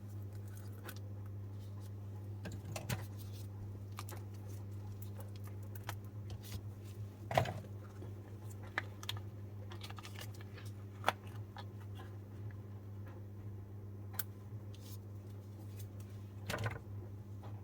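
Cured resin coasters being demolded from silicone molds: scattered light clicks and taps as the pieces are pried loose and handled, a few sharper knocks among them, over a steady low hum.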